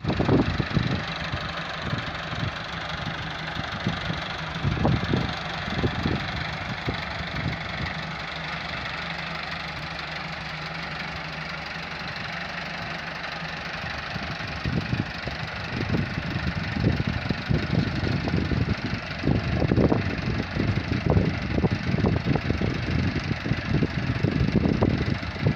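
Massey Ferguson 385 tractor's four-cylinder diesel engine running steadily near idle, then working harder with uneven surges of throttle from about 15 seconds in as the tractor is driven up wooden plank ramps under load.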